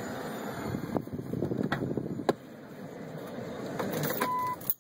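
Rustling and several sharp clicks as someone climbs out of a car, with a short single-tone chime from the car near the end.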